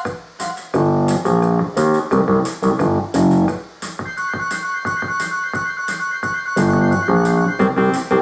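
MIDI music played by a Sound Blaster Vibra 16 sound card: synthesized keyboard-like chords and melody over a regular beat of drum hits.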